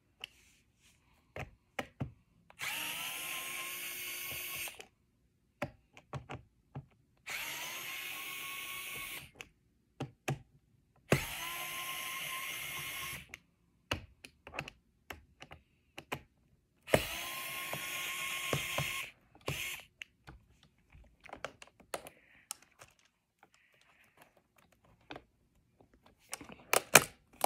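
Small cordless electric screwdriver running in four bursts of about two seconds each, each one spinning up in pitch and then holding steady, backing screws out of a robot vacuum's underside. Short clicks and taps of handling fall between the bursts.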